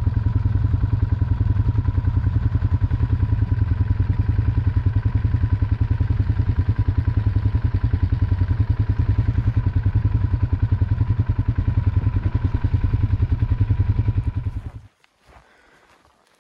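ATV engine running at a steady pace with a rapid, even low rumble, heard close up from the machine being ridden. It cuts off near the end, leaving near quiet.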